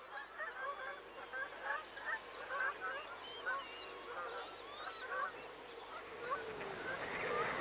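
A flock of geese calling, many short honking calls overlapping, growing louder near the end.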